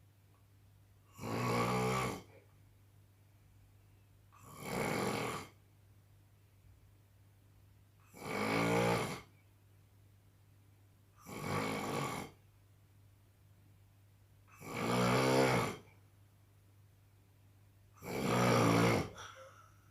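A man snoring in his sleep: six snores, each about a second long, coming regularly about every three and a half seconds.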